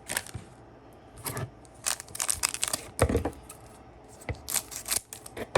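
Plastic trading card pack wrapper being torn open and crinkled, in short crackly bursts, with a few taps and rustles from handling the cards.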